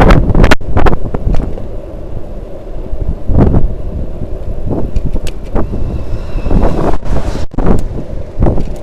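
Wind buffeting the microphone of a camera on a moving bicycle: a loud low rumble that surges and eases in gusts, loudest at the start.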